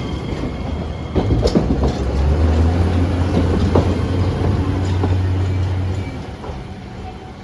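Botchan Ressha, a diesel-powered replica of a small steam locomotive train, running on its rails: a low steady engine drone with scattered wheel clicks over rail joints. The drone drops away about six seconds in and the sound fades.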